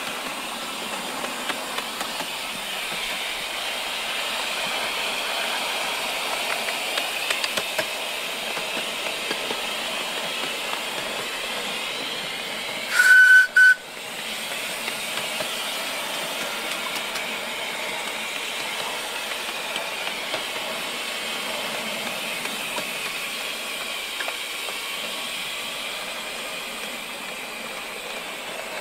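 7¼-inch gauge miniature steam locomotive running, with a steady hiss of steam. About halfway through its whistle sounds once, a brief blast of about a second broken in two.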